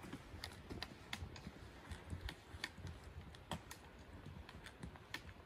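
Hikers walking on a dirt and stone trail: a run of irregular sharp clicks and taps from trekking pole tips and boots striking the ground.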